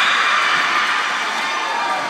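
Crowd of players and spectators cheering and shouting after a volleyball point, echoing in a large gym hall.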